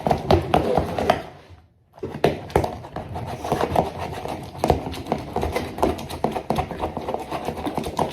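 Lumpy homemade slime being stirred in a bowl: a dense, irregular run of sticky clicks, with a brief break about one and a half seconds in.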